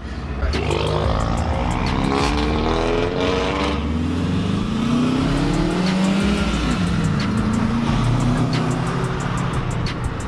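Subaru Impreza's flat-four engine pulling away from a stop with a manual gearbox, heard from inside the cabin: the engine note rises, drops at a gear change about four seconds in, then climbs again.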